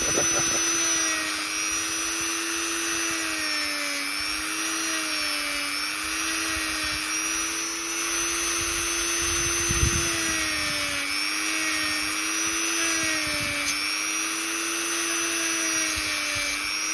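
Dremel rotary tool with a sanding wheel running at high speed, a steady whine. Its pitch sags briefly again and again as the wheel is pressed against a plastic doll-joint repair piece to grind it thinner.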